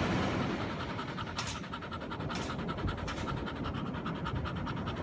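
A dog panting rapidly, short breaths in a quick, even rhythm with a few louder huffs among them.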